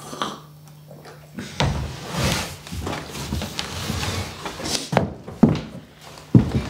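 Dishes being handled on a table: plates set down with a series of knocks and clatters, the loudest about five and a half and six and a half seconds in. A faint steady hum comes before them.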